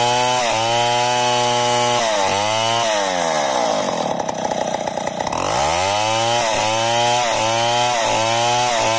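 Chainsaw engine revving in quick repeated pulses, about two a second. About three seconds in, its pitch sinks for a couple of seconds, as if bogging down while cutting, then climbs back up to the pulsing revs.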